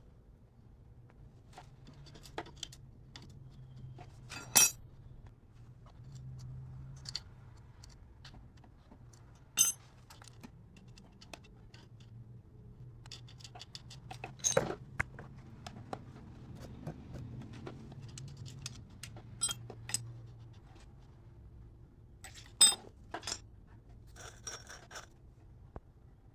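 Metal hand tools and small engine parts being handled, giving scattered clicks and taps with a few sharp, ringing metallic clinks.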